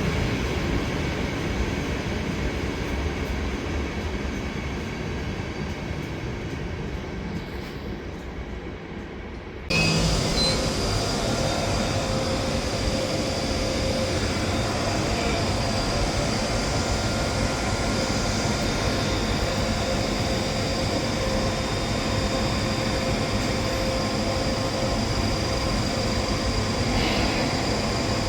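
Electric train running and fading as it pulls away. About ten seconds in, an abrupt cut brings the louder, steady running of an ÖBB Taurus class 1116 electric locomotive hauling a freight train, a whine with several held tones over rail noise.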